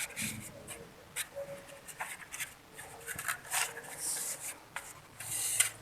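A glue stick rubbing on a paper plate and wool thread being pressed down onto it, heard as a series of short, irregular scrapes and rustles.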